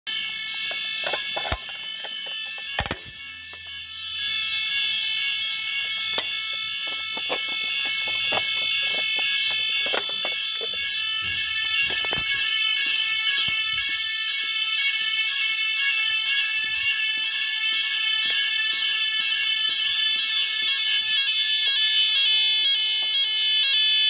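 A type 4 Chubb fire alarm system's sounders sounding the alarm during a test, a steady high multi-tone sound that grows louder near the end. Two sharp knocks come in the first three seconds.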